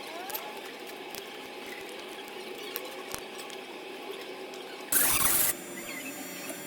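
Small clicks and light taps over a steady hum, with a short, loud burst of noise about five seconds in.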